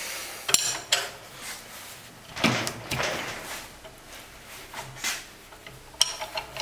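Metal tool clinks and scrapes as a steel ring spanner is handled and fitted onto the nozzle nut of a Bosch common rail injector held in a clamping device, to loosen it. Sharp ringing clinks near the start and near the end, with a louder scrape about two and a half seconds in.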